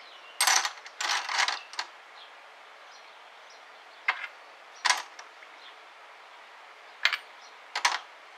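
Brass .308 Winchester cases clinking as they are dropped by hand, a few at a time, into the wire basket of a water-filled Lyman Turbo Sonic 700 ultrasonic cleaner. The clinks come irregularly, in small clusters with quiet gaps of a couple of seconds.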